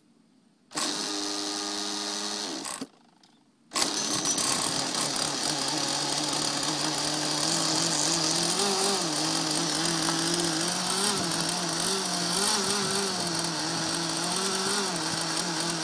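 Model boat's .46-size glow engine spun over by an electric starter for about two seconds, then after a short pause cranked again and catching. It keeps running on its own with a steady note that wavers slightly in pitch.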